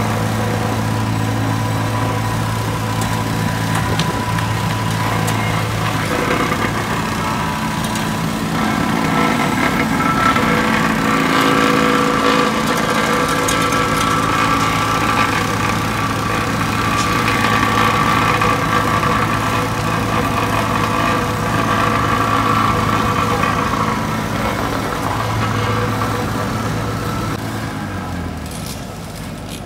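Engine of an asphalt paver running steadily, mixed with the engines of other paving machinery such as a plate compactor. The hum stays even and eases off slightly near the end.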